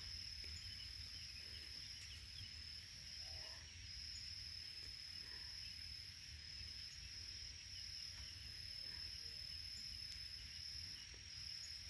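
Faint, steady, high-pitched insect trill, unbroken throughout, over a low background rumble.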